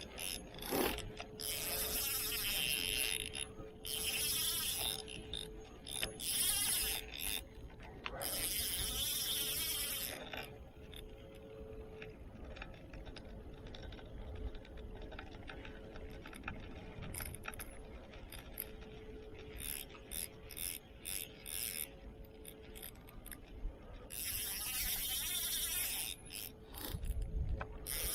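Fishing reel working against a heavy fish: bursts of reel winding and drag ratcheting, loud for the first ten seconds and again near the end, with a quieter, sparser stretch in between.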